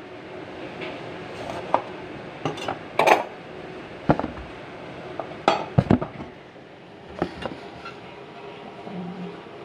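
Kitchen utensils and containers knocking and clinking on a countertop: a string of separate sharp knocks and clatters, loudest about three seconds in and again around six seconds in.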